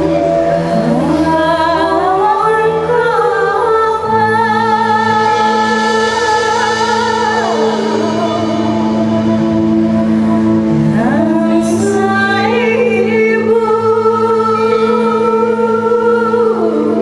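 Ensemble music: female voices sing two long phrases of wavering held notes, each sliding up at its start and falling away at its end, over a steady low held drone that enters about four seconds in.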